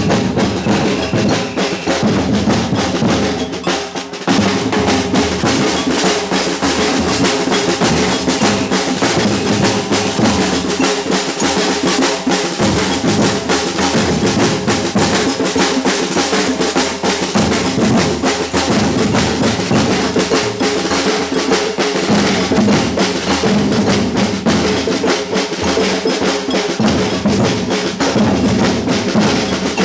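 Batucada (Brazilian samba percussion band) playing a fast, dense groove of bass drums and snare drums, with a brief break about four seconds in before the drums come back in.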